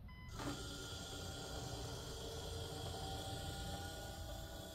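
Small electric motor of an automatic chicken coop door running steadily with a whirring hum for about four and a half seconds as it drives the slatted door closed.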